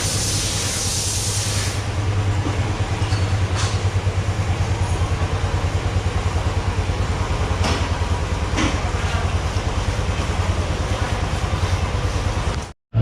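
A machine running with a steady, rapid low thudding, with a few short metallic clicks of tools over it. There is a hiss in the first couple of seconds, and the sound cuts out abruptly for a moment near the end.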